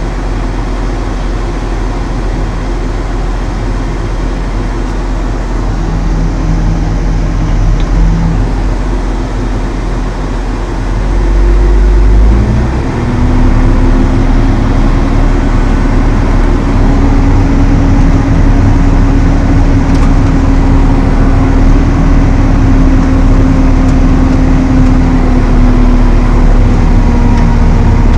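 Valtra T214 tractor's six-cylinder diesel running steadily. About twelve seconds in it gets louder and a new steady hum rises in pitch and then holds, as the tractor-mounted Elho Tornado chain flail mower comes up to working speed.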